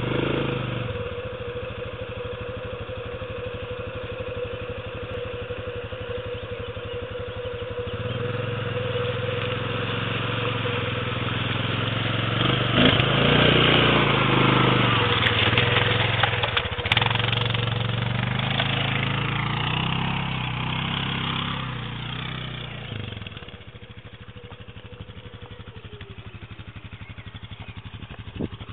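Quad bike (ATV) engine running at a steady idle, then rising in level and revving as the quad comes close and drives past, loudest about halfway through. About three-quarters of the way through it drops off sharply as the quad pulls away.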